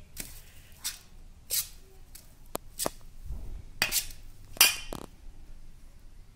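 A steel spoon scraping and clinking against a stainless-steel bowl while mixing soaked sago and grated potato, in a run of irregular strokes. The loudest clink comes about four and a half seconds in.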